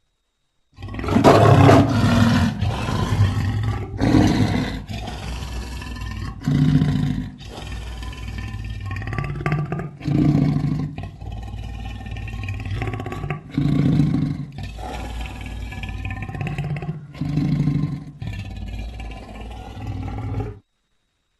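Big-cat roaring sound effect presented as a Pleistocene cave leopard: a continuous deep, rumbling growl with about six louder roars every three to four seconds. It starts about a second in and cuts off suddenly near the end.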